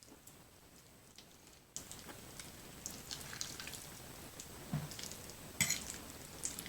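Wet, sticky mouth sounds of chewing creamy fettuccine Alfredo: many small smacking clicks that pick up after a quiet first second and a half, with a couple of louder clicks about five seconds in.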